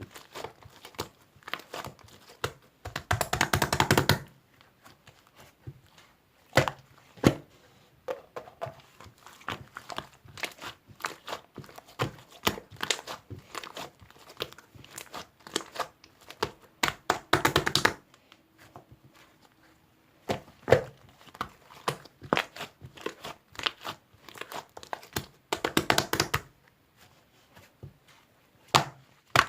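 Close-up crinkling and crunching handling sounds: irregular sharp clicks and taps, with three longer rustling stretches.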